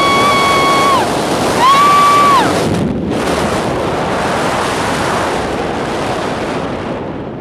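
Freefall wind rushing hard over the microphone during a tandem skydive, with two long high-pitched screams from the jumper in the first couple of seconds. The wind rush eases toward the end.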